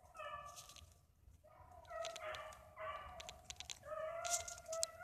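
Rabbit dogs baying faintly, a string of four or five drawn-out howling calls: the pack running a jumped rabbit's trail. A few sharp crackles of twigs or leaves come between the calls.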